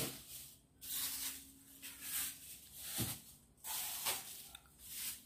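Plastic bags rustling in about five short, soft bursts as bagged fruit is moved about on a refrigerator shelf.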